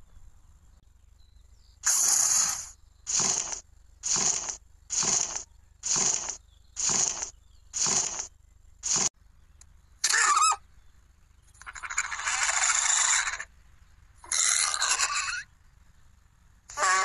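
Creature sound effects for animated dinosaurs: eight evenly spaced rasping, hissing bursts about a second apart, then a short shrill squeal that falls and wavers in pitch, followed by longer rasping hisses.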